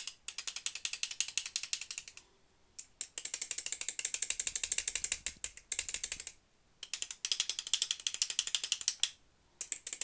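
Balisong (butterfly knife) handles worked rapidly back and forth by hand on freshly oiled pivots: fast, dense runs of clicking and tapping in four bursts with short pauses between. The pivot screws are still slightly loose so the oil can work into the bushings, which makes the knife tappy.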